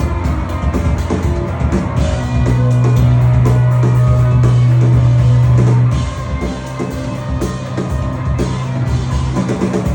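Rock band playing live: drum kit hits with guitar, and a loud held low note from about two seconds in until about six seconds in.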